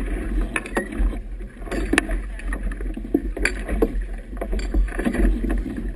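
Wind buffeting the camera's microphone as a steady low rumble, and choppy river water splashing against a boat's hull with irregular sharp knocks and sloshes.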